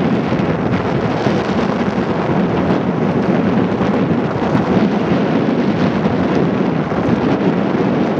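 Steady wind buffeting the microphone, a loud, even rumbling rush.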